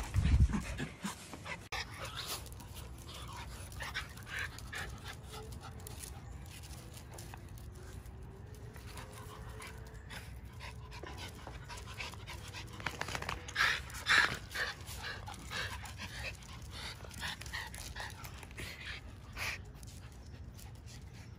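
Miniature schnauzer puppies panting and scuffling as they play-fight on paving, with a thud right at the start and a burst of louder scuffling noises a little past halfway.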